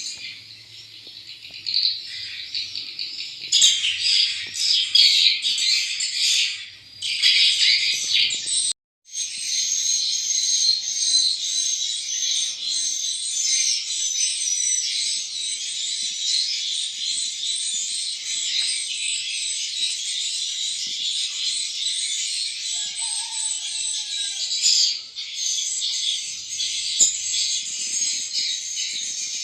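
Swiftlets chirping: a dense, continuous high twittering chorus, cut off completely for a moment about nine seconds in.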